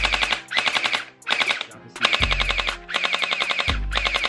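SKD electric gel blaster fired on full auto in about six short bursts, its motor and gearbox clattering rapidly through each burst. It is being fired empty, with no gel beads loaded.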